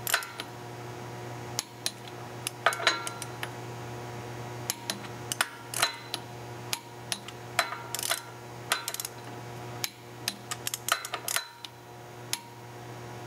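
Ratcheting torque wrench tightening flywheel bolts to 50 ft-lb: irregular sharp metallic clicks and clinks as the ratchet is worked, some bunched in quick runs, over a steady low hum.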